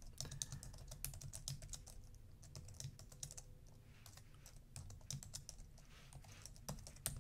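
Computer keyboard typing: quick, irregular key clicks, faint, with a few louder keystrokes near the end.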